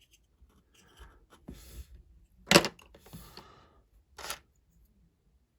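Lego pieces being handled: a few short rustles and clicks, the loudest about two and a half seconds in.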